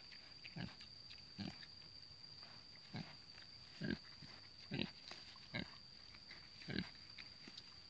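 Pig giving short, low grunts, about one a second at uneven spacing, as it forages in grass, over a steady high-pitched whine.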